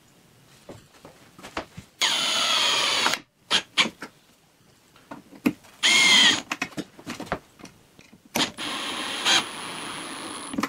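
Electric drill driving wood screws through a wooden deck into a wooden post, running three times. The first run is about two seconds in, a short one follows about six seconds in, and the longest is about eight and a half seconds in. Light knocks and clicks of handling come between the runs.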